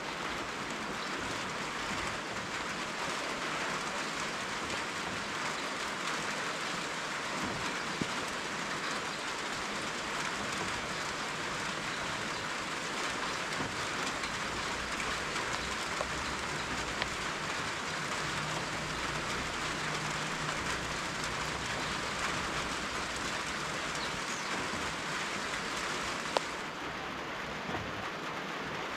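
Steady rain falling, an even hiss with a few sharp drop taps now and then. The hiss turns slightly duller near the end.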